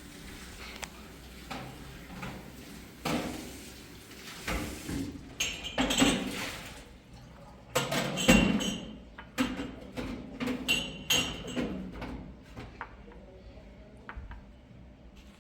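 A series of irregular knocks and clanks of metal objects, several with a short metallic ring; the loudest comes about eight seconds in.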